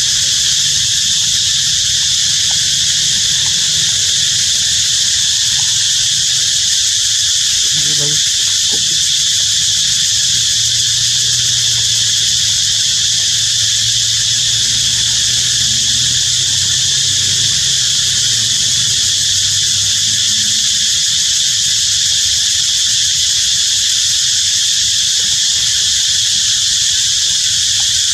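Steady insect chorus, a continuous high-pitched buzz that doesn't change.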